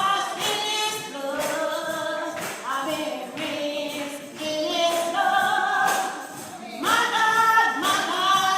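Gospel singing: a woman's voice holding long, sliding notes with others joining in, over a steady tambourine beat.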